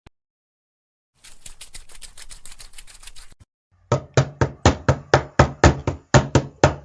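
Footstep sound effects: first a quick, quiet patter of light steps, about nine a second, then after a short pause louder, evenly spaced footsteps, about four a second, each with a low thud.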